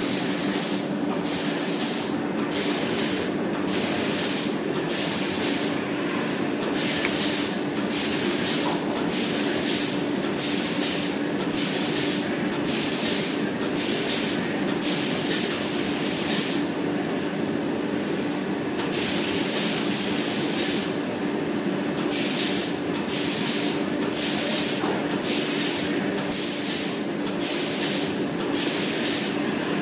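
Paint spray gun on an industrial robot arm hissing in many short bursts, a little more than one a second, as the gun is switched on and off while the arm sweeps, with a break of about two seconds a little past halfway. A steady low hum runs underneath.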